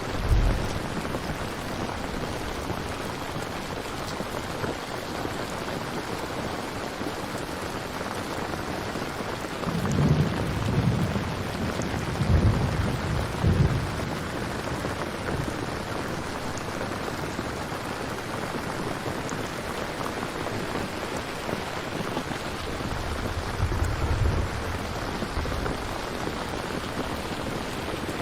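Steady rain falling, with low rumbles of thunder rolling in several times: near the start, a longer spell about ten to fourteen seconds in, and again around twenty-four seconds in.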